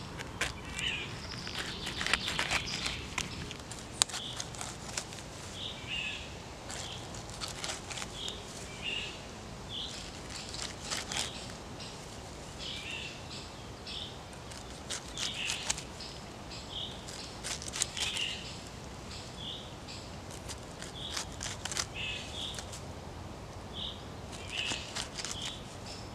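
Knife blade slicing and crunching through pineapple rind in short, irregular cuts as the fruit is peeled. Birds chirp over it again and again.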